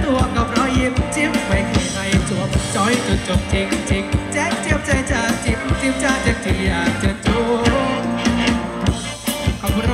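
Live Thai ramwong band music: a singer over a steady drum beat and bass.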